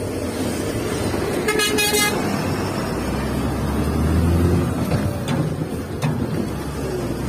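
Diesel truck engine running, heard from inside the cab. A short horn blast sounds about one and a half seconds in, and from about three seconds the engine's low drone grows louder.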